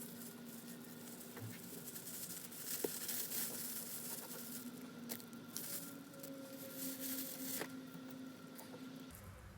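Crinkling and tearing of plastic snack packaging as it is handled, in irregular rustles. A steady hum runs underneath and stops near the end.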